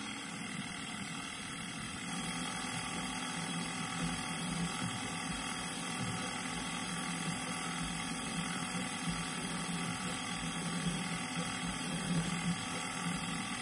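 Milling machine running with its spindle turning a small drill bit that is being fed into a small metal rod held in a vise. A steady motor whine with several pitches, a little louder from about two seconds in.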